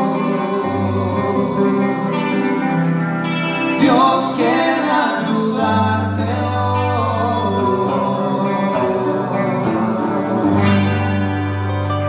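A live rock band playing, with electric guitars, bass and singing over sustained chords. There is a loud hit about four seconds in.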